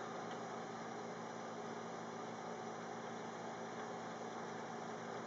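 Steady low hum and hiss of room tone, with no distinct events.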